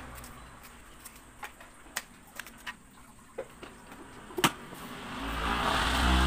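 Knife chopping on a plastic cutting board: a handful of separate sharp knocks, the loudest about four and a half seconds in. Music fades in near the end.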